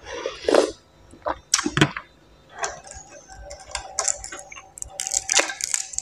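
Close-miked eating sounds: a slurp of noodle-soup broth from a spoon, then chewing with sharp clicks and a run of small crackles, as a paper tissue is handled near the end.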